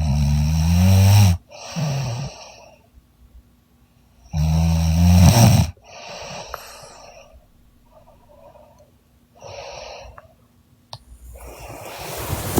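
A young woman snoring loudly in deep sleep: two loud snores about four seconds apart, each followed by a shorter, softer one, then quieter breaths.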